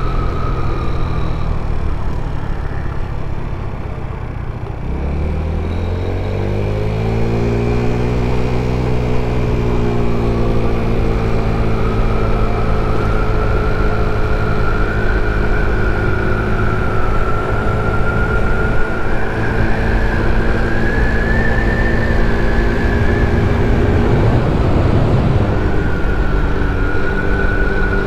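A 50cc GY6-type scooter's four-stroke single-cylinder engine running under way. About five seconds in, its note rises as the scooter picks up speed, then levels off into a steady cruise, with a higher whine above it. Near the end the note breaks up briefly, then settles again.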